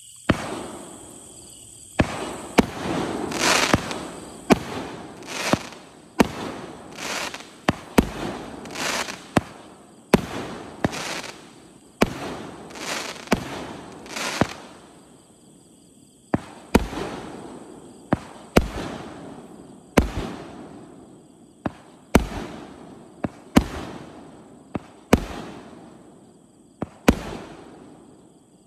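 A 2-inch (50 mm) 48-shot consumer fireworks cake firing shell after shell, about two sharp reports a second, each followed by a fading rush of noise from the aerial burst. There is one report right at the start, a short pause, then steady firing with a brief lull past the middle.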